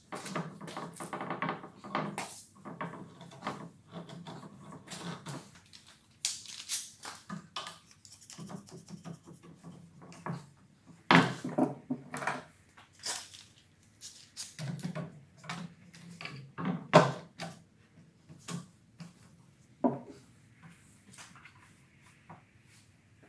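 Clamps being set and tightened on a wooden panel: a screw clamp turned, then Irwin Quick-Grip bar clamps laid across the board and squeezed, giving irregular clicks, clacks and knocks against the wood and the metal table. The sharpest knocks come about eleven and seventeen seconds in.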